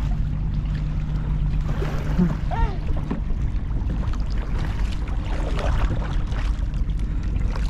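Kayak paddling on a lake: the paddle blades dip and splash in the water against a steady low rush of wind and water, with a few splashier strokes in the second half.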